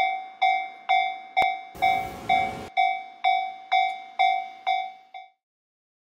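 Japanese railway level-crossing warning bell ringing its repeating ding, about two strikes a second. A brief burst of rumbling noise lasts about a second near two seconds in. The bell cuts off suddenly a little after five seconds in.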